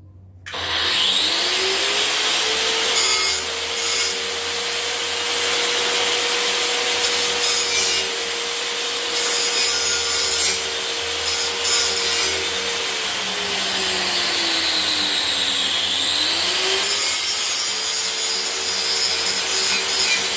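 Electric motor starting up about half a second in and running with a steady whine over a loud rushing hiss. Its pitch sags slowly for a few seconds about two-thirds of the way through, then climbs back up.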